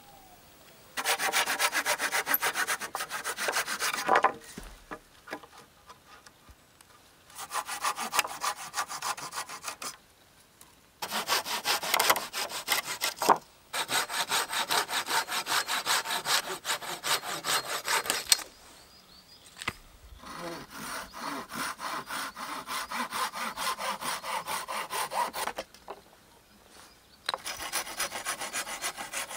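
Hand saw cutting a dead wooden pole with rapid back-and-forth strokes, in six bouts broken by short pauses.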